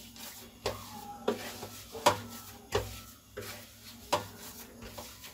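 Maize-flour dough being kneaded by hand on a steel plate, the hand pressing and pushing the dough to work it soft. About six short knocks of hand and dough against the metal plate come roughly two-thirds of a second apart, over a faint rubbing.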